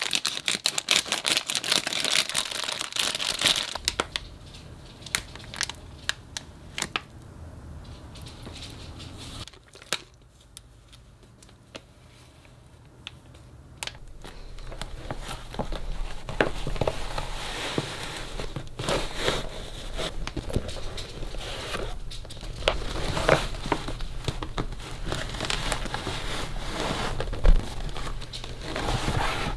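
Plastic packaging and a clear vinyl backpack crinkling and rustling as they are handled and unpacked by hand. The crinkling is dense in the first few seconds, quieter for a stretch in the middle, then picks up again and runs steadily with scattered clicks.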